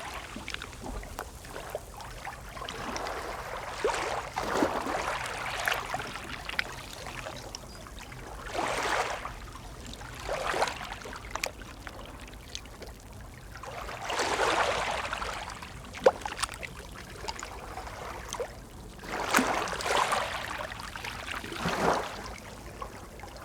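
Calm sea: small waves lapping and splashing, swelling and fading every few seconds, with a sharp click about two-thirds of the way through.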